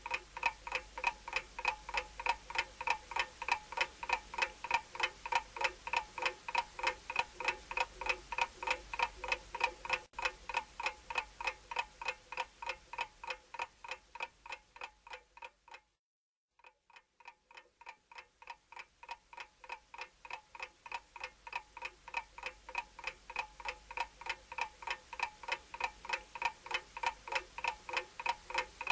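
Clock ticking sound effect, an even, quick ticking of about four ticks a second. It fades out about halfway through, stops for about a second, then fades back in.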